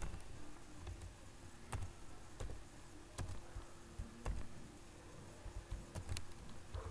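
Computer keyboard being typed on slowly: scattered, separate faint key clicks about a second apart.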